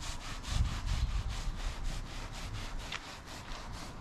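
Rapid rhythmic back-and-forth rubbing strokes worked by hand on a hard surface, about five or six strokes a second, keeping an even pace.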